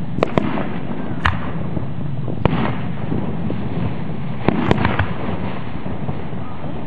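Aerial fireworks going off: several sharp bangs spread through, bunched in a quick cluster about four and a half to five seconds in, over steady background noise.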